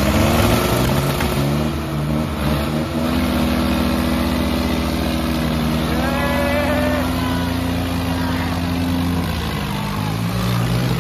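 Diesel tractor engines running hard under heavy load in a tractor tug-of-war, the Sonalika DI 35 nearest. The engine note rises at the start, holds steady, sags about nine seconds in and climbs again near the end.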